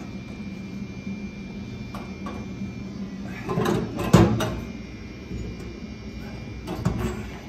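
Flat metal drain tool scraping and clanking against a stainless steel sink's drain basket as it is turned to tighten the drain down. A short scrape is followed by a sharp clank about four seconds in, then a lighter knock near the end, over a steady low hum.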